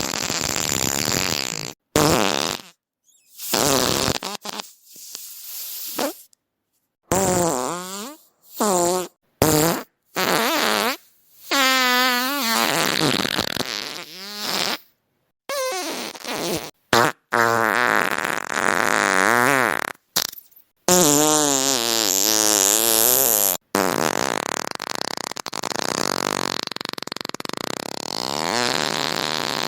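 A rapid string of farts, one after another, cut off abruptly with short silent gaps between them. Many have a wavering pitch, and later in the run they grow longer and drawn out, lasting several seconds each.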